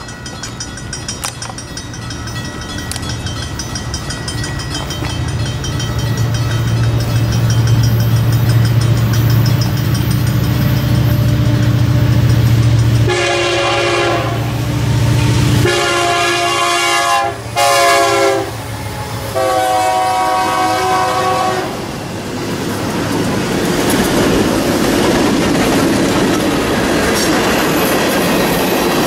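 Freight train approaching: the low rumble of its diesel locomotives builds, then the locomotive air horn sounds about halfway through in four blasts (long, long, short, long), the grade-crossing signal. After that the tank cars roll past with steady rail and wheel noise.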